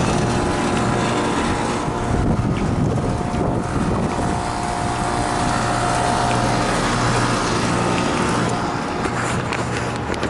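Outdoor air-conditioning unit running: a steady mechanical hum with a few held tones over a rushing noise.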